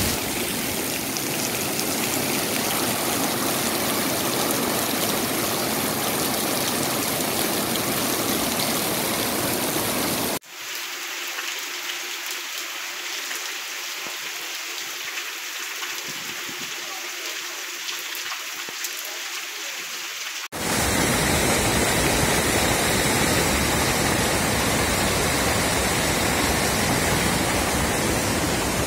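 Heavy rain falling in a steady hiss. About ten seconds in it cuts suddenly to another, thinner rain recording with no deep rumble. About twenty seconds in it cuts to floodwater rushing and churning white along a stream.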